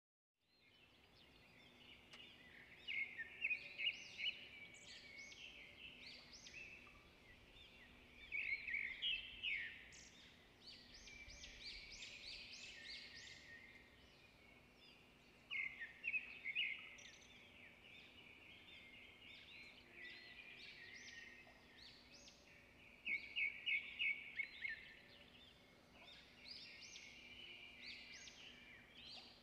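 Small birds singing. Quick high chirps and sweeping notes run throughout, with a loud burst of rapid repeated notes every few seconds, over a faint steady hum.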